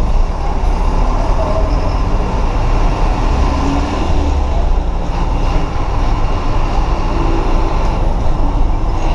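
Diesel engine and road noise of a Mercedes-Benz city bus (Caio Apache Vip 2 body) heard from the driver's seat as it drives, a steady low rumble.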